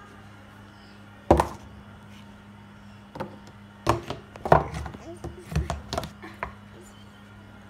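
A toddler knocking and banging on a wooden bed headboard: one loud knock about a second in, then a run of irregular knocks between about three and six and a half seconds in.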